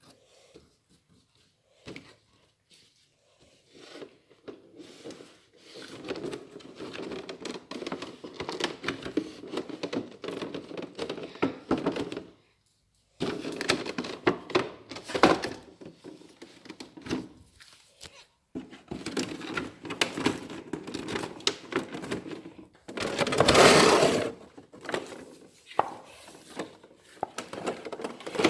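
Action-figure packaging being handled and unpacked: cardboard and plastic rustling, crinkling and scraping, with knocks and clicks, and a louder rustle near the end.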